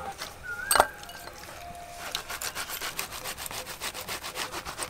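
A metal hand grater being rubbed back and forth through soft dragon-fruit flesh on a steel plate, in rapid, even scraping strokes that start about two seconds in. A single knock comes just under a second in.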